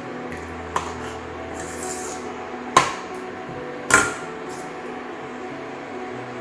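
Metal cookware clanking: three sharp clanks, one light one about a second in and two louder ones about three and four seconds in, over a steady low background hum.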